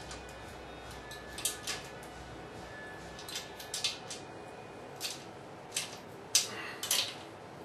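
Irregular light metallic clicks and clinks, about eight in all, as a steel TV wall-mount bracket is handled and its fasteners tightened.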